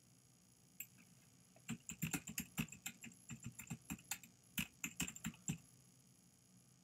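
Typing on a computer keyboard: a single keystroke about a second in, then a quick run of keystrokes lasting about four seconds.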